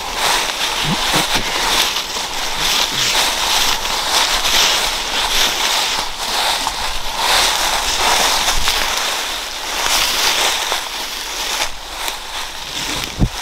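Footsteps crunching and shuffling through dry fallen leaves, close and continuous, with a short dull thump near the end.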